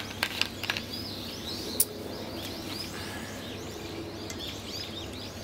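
Small birds chirping outside: a steady run of short, high chirps several times a second. A few sharp clicks and taps come in the first two seconds, over a faint steady hum.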